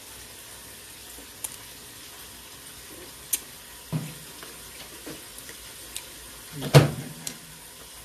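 Person eating balut: a few small clicks and soft mouth noises while chewing, over a steady hiss, with a louder short mouth sound about seven seconds in.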